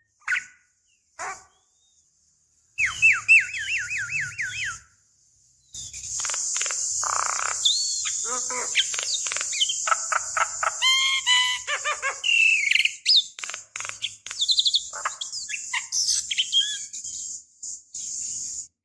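Javan myna singing: bursts of varied chattering calls and whistles, including a run of about nine quick repeated notes near the start, broken by short silences.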